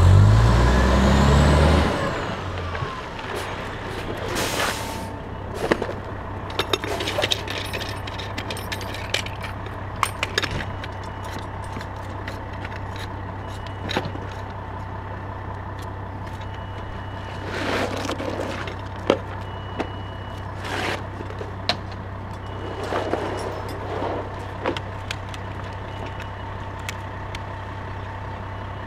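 Fire engine idling steadily, with scattered metal clanks, knocks and scrapes from a firefighter working a hydrant's caps and hose couplings with a ratcheting hydrant wrench. A loud low rumble fills the first two seconds.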